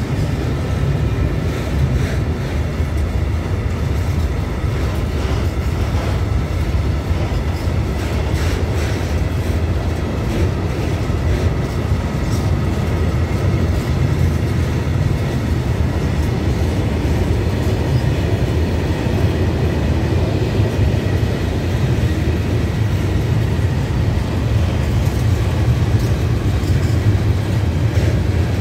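Long freight train of ČD Cargo covered hopper wagons rolling past close by: a steady, loud low rumble of wheels on rail, with occasional clicks as wheels cross rail joints.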